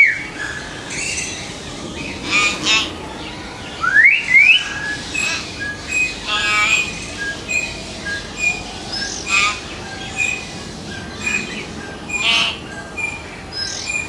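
Hill myna calling: a string of short whistled notes mixed with harsh, rasping squawks, and two quick rising whistles about four seconds in.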